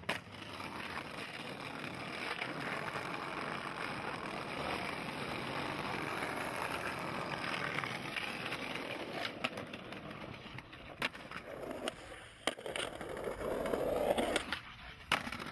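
Skateboard wheels rolling over brick paving in a steady rumble, then from about nine seconds in several sharp wooden clacks of the board popping and landing, and a louder scrape near the end.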